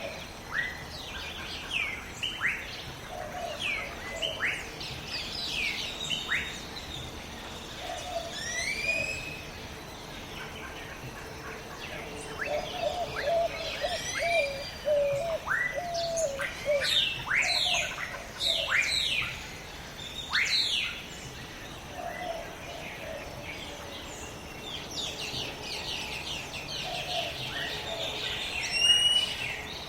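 Jungle bird chorus: many birds calling, with sharp downward-sweeping whistled chirps and a lower warbling call that comes back every few seconds over a faint steady high tone. The calls are busiest about halfway through.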